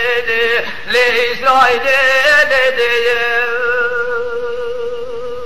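Kurdish dengbêj singing: a man's solo voice in an ornamented, wavering line that settles into a long held note, slowly fading near the end.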